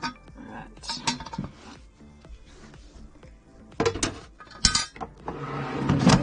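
A baking pan knocking and clattering as it is set into an air fryer basket, then the basket sliding into the air fryer with a rising scrape that ends in a clunk as it seats.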